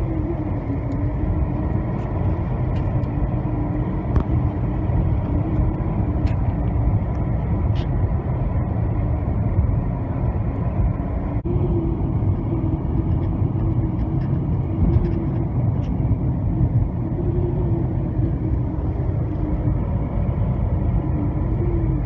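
Car driving on the road, heard from inside the cabin: a steady low rumble of engine and tyres, with a faint hum that wavers slightly in pitch.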